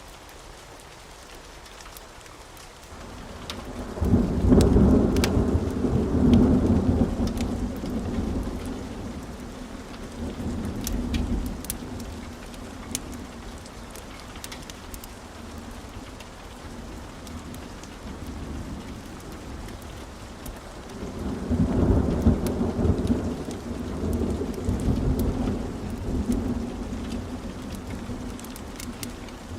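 Steady rain with two long, low rolls of thunder: the first begins about four seconds in and slowly dies away, the second comes about two-thirds of the way through. Scattered sharp ticks sound over the rain.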